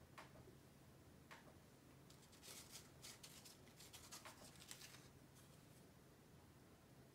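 Faint handling of paper cards: a card pressed down onto a woven mat with a soft tap, then a hand rummaging among stacked cards in a woven basket, a run of dry rustles and scrapes in the middle.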